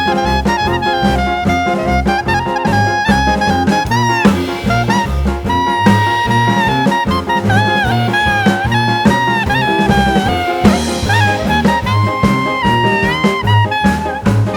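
Background music: an upbeat jazzy tune with a horn-like melody over a steady walking bass and drums.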